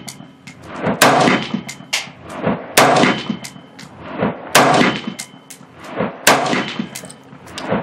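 Aimed single shots from an AR-style rifle with a Faxon 10.5-inch 5.56 pencil barrel: four loud, sharp reports about two seconds apart, with quieter cracks between them. The barrel is hot after three magazines fired quickly, and this is the hot-barrel group.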